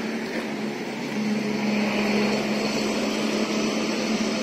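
Steady mechanical hum holding one constant low tone over a background hiss, from machinery running while a tram car is drawn onto a low-loader trailer.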